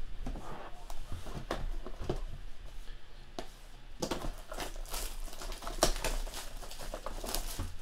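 Shrink-wrapped trading-card hobby box being handled: the plastic wrap crinkles and the box gives light taps as it is picked up and turned over, with the crinkling getting busier about halfway through.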